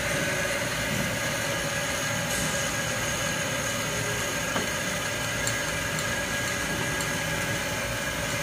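Bridgeport surface grinder spindle running steadily: an even hum with a few steady whining tones and no rough or uneven noise, as from a spindle in good condition.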